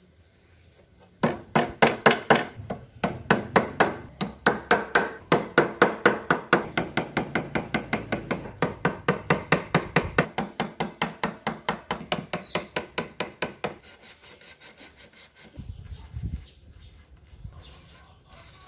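Hammer tapping rapidly on wood, about five even strikes a second, starting about a second in and stopping about two-thirds of the way through. A couple of dull thumps follow near the end.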